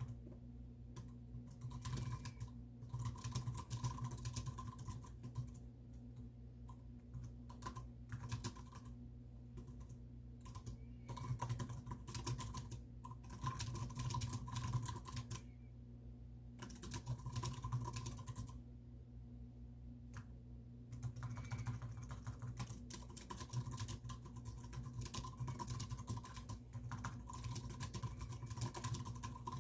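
Typing on a computer keyboard: fast runs of key clicks lasting a few seconds each, broken by short pauses, over a steady low hum.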